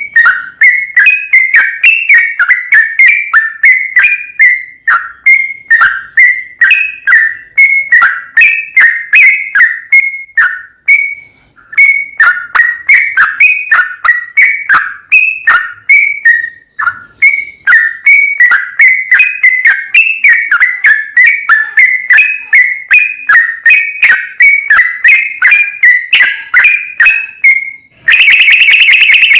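Yellow-vented bulbul (trucukan) song: a fast, loud, almost unbroken run of short whistled notes, with only brief breaks around 11 and 17 seconds in. Near the end the song gives way to a harsher, steady tone lasting about a second.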